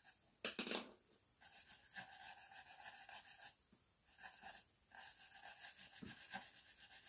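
Small round paintbrush scrubbing and dabbing against a textured card surface: faint, quick scratchy strokes in runs of a second or two, with a short louder rustle about half a second in.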